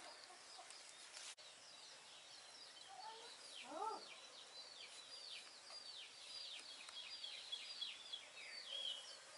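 Faint birdsong: a run of short, high chirps that slide downward, a few each second, with a brief lower call about four seconds in.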